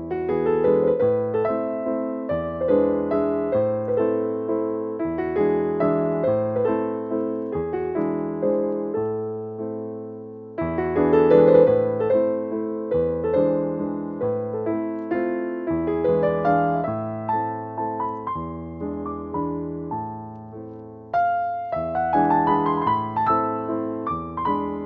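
Background piano music: notes struck in succession and fading, over a low bass line.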